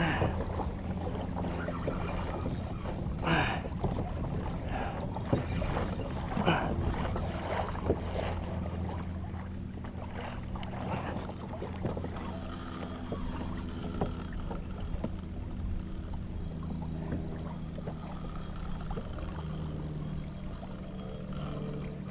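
Water slapping against the hull of a plastic fishing kayak as a hooked shark tows it, over a steady low hum. A few sharp knocks or splashes come in the first eight seconds, the loudest about three and six and a half seconds in.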